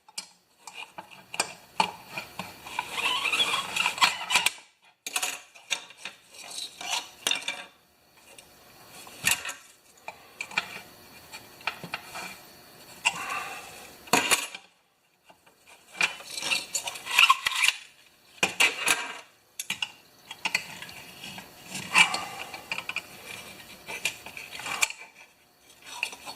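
Recoil (rewind) starter of a Honda HR214 lawn mower being worked repeatedly, the rope pulled and let rewind in bouts of a second or two, with a dry metallic scraping and clattering from the recoil spring: the old spring needs oil.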